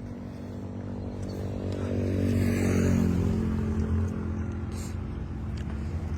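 An engine running steadily, getting louder about two seconds in and easing off again after about four seconds.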